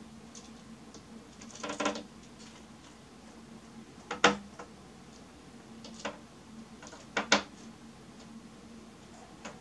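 Male red-breasted nuthatch pecking and striking at a window pane as it attacks its own reflection, defending its territory. Sharp, irregular taps on the glass: a quick run about two seconds in, the loudest single tap about four seconds in, and a double tap near seven seconds.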